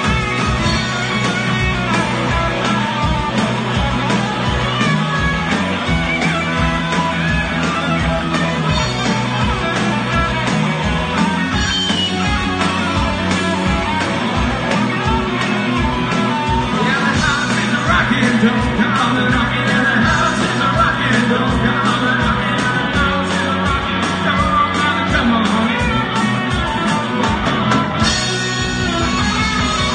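Live rock-and-roll band playing: electric guitars, electric bass and drum kit, with a steady beat.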